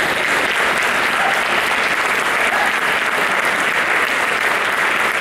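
Audience applauding, a steady, continuous clapping that builds up just before and holds loud throughout.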